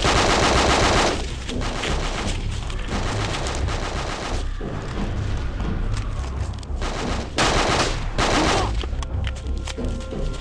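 Bursts of automatic gunfire: a long rapid burst at the start and two shorter bursts about seven and eight seconds in, with scattered single shots and a low rumble in between.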